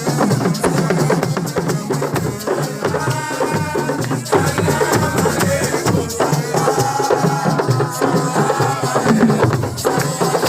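Drum-led percussion music with voices singing over it.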